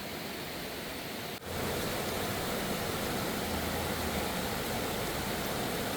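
Steady rushing of a mountain stream's water. An abrupt cut about a second and a half in, after which the rushing is louder and fuller.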